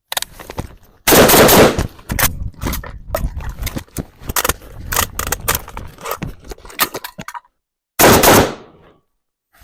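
Gunfire in fast strings of shots, with clicks and clatter mixed in from emergency magazine reloads when the weapon runs empty. One more loud burst comes about a second after the firing stops.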